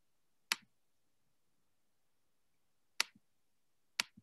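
Three sharp clicks over near-silent room tone, the first about half a second in and the other two a second apart near the end, each followed by a faint low knock.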